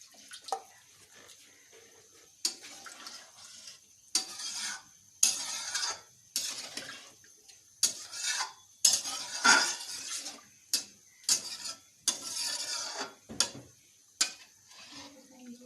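Spoon stirring a pan of curry gravy, scraping and knocking against the pan in a run of short, separate strokes.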